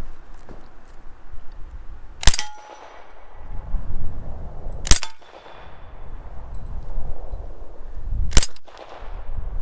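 A gun fires three single shots, spaced about two and a half to three and a half seconds apart, each with a short echo. Between the shots, footsteps crunch through deep snow.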